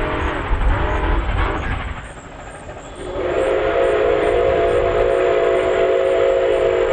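Nickel Plate Road 765 steam locomotive departing: the train's low rumble for the first two seconds, then its steam whistle blowing one long steady blast from about three seconds in.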